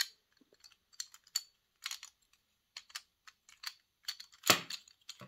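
Light plastic clicks and taps as the Fisher-Price cassette player's plastic push-button keys are worked into their plastic frame: about a dozen irregular clicks, with one louder snap about four and a half seconds in.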